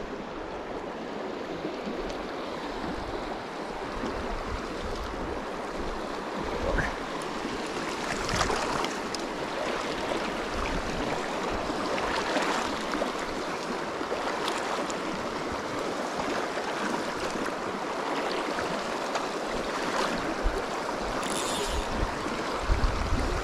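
Small mountain creek running over riffles, a steady rushing of water, with a couple of brief gusts of wind on the microphone.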